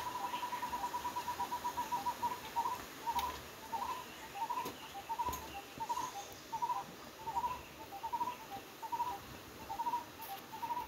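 An animal call in the background: a fast, even run of short notes at one pitch, changing about two seconds in to short groups of slightly rising notes repeated about every two-thirds of a second.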